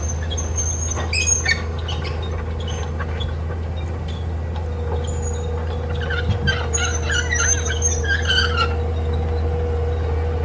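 Steady low drone of a heavy machine's engine running, with high-pitched squeaks and chirps coming and going, most of them in the second half.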